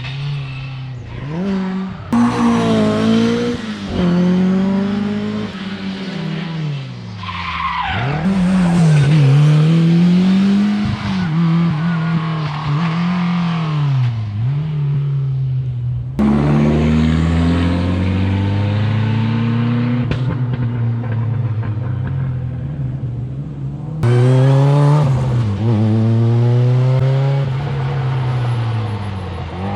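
Rally cars at full throttle on a stage, engines revving up and dropping at each gear change as they pass one after another, in several short clips joined by abrupt cuts about 2, 16 and 24 seconds in.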